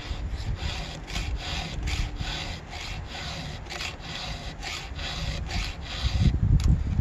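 A round chainsaw file rasping by hand through the cutters of a ripping chain, about two strokes a second, as the chain is sharpened.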